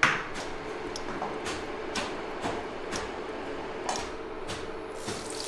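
A plate clinks down on a tiled kitchen counter at the start, followed by light ticks and clicks about twice a second over a steady hum.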